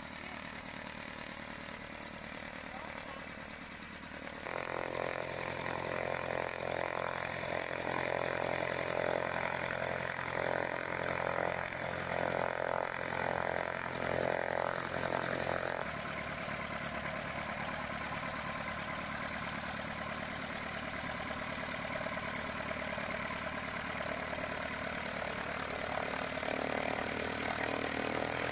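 Piston engine and propeller of a single-engine Cessna light aircraft running at low taxiing power, a steady drone. It gets abruptly louder about four seconds in and drops back to a lower drone about sixteen seconds in.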